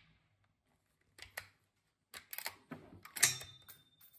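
Bolt of a Steyr SM12 bolt-action rifle being worked after a shot: a string of short metallic clicks and clacks, the loudest about three seconds in, followed by a brief ringing note.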